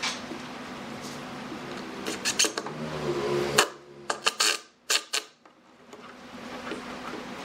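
Workshop handling sounds: scattered sharp knocks and clicks over a steady low hum, which cuts out briefly about two-thirds of the way through.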